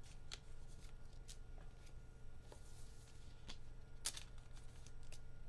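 Trading cards and their packaging being handled, giving faint scattered clicks and soft rustles, with one sharper click about four seconds in. A low steady hum sits underneath.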